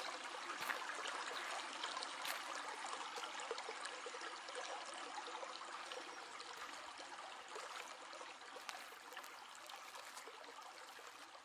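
Babbling stream, water trickling and gurgling over rocks, slowly fading.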